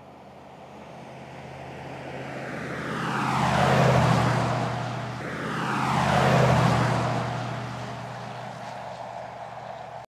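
2022 Land Rover Defender V8's supercharged V8 engine as the car drives past at speed. It grows louder, then sweeps past twice with a falling pitch, about four and six and a half seconds in. It fades afterwards and cuts off suddenly at the end.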